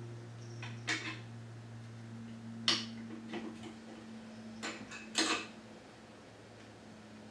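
Scattered metallic clicks and clinks of a ratchet and socket working the exhaust pipe clamp bolt on a four-stroke dirt bike, over a steady low hum.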